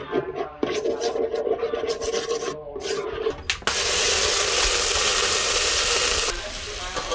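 A metal spoon scraping around the bottom of a hot aluminium pot. About three and a half seconds in, water poured into the hot pot sets off a loud, even hiss of steam that lasts about three seconds and stops suddenly.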